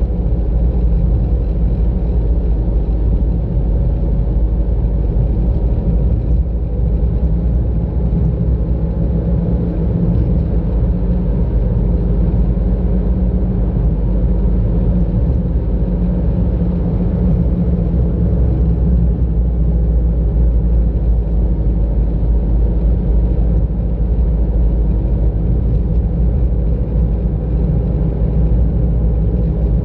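Car driving at a steady pace, with a continuous low rumble of engine and road noise heard from inside the car.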